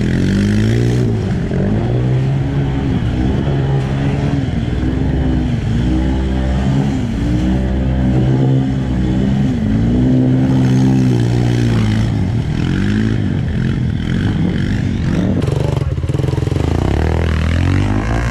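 Off-road vehicle engine revving up and down over and over, its pitch rising and falling every second or two.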